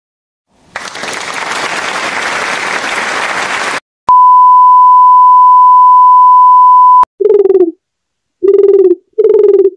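A series of stock sound effects: about three seconds of a steady rush of noise, then a three-second pure 1 kHz censor bleep, then three short, low buzzer tones in quick succession.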